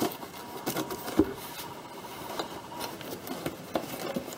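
Cardboard box being handled and tugged at to pull a boxed replica out: cardboard rubbing and scraping with scattered light clicks and one sharper knock about a second in.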